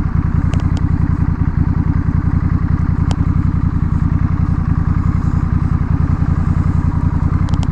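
Honda Rebel 1100's parallel-twin engine idling with the muffler removed: a steady, evenly pulsing open exhaust note that holds the same pitch throughout. A few faint sharp clicks sound over it.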